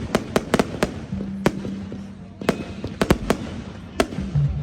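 Firework display: about a dozen sharp bangs and reports at irregular intervals, some in quick clusters, going off overhead.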